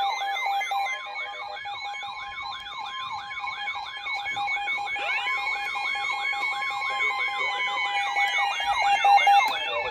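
Several electronic sirens yelping over one another in fast rising-and-falling sweeps, over a steady tone. About five seconds in, another siren winds up from low and holds a long, slowly falling wail.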